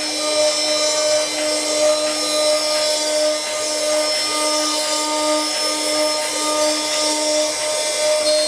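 CNC wood turning and engraving machine running: a steady motor whine over an even hiss, typical of a spindle cutting wood.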